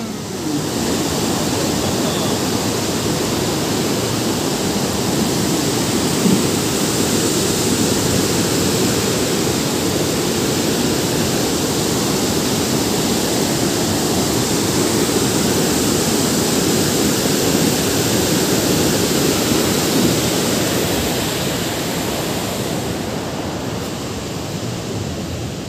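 Floodwater rushing down a dam's open spillway: a loud, steady roar of falling water that eases a little near the end. The gates are releasing a heavy outflow after two typhoons.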